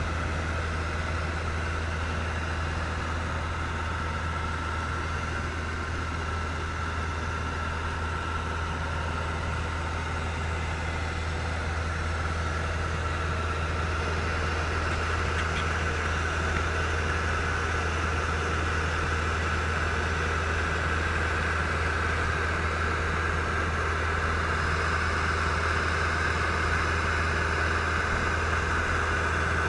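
Robin DR400 light aircraft's piston engine and propeller in cruise, heard inside the cabin: a steady drone over air noise, growing slightly louder from about halfway.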